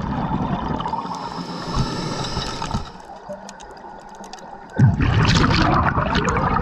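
Scuba diver breathing through a regulator underwater: a rush of exhaled bubbles fades out about three seconds in, a quieter gap of about two seconds follows while he breathes in, then another exhalation bursts out abruptly about five seconds in.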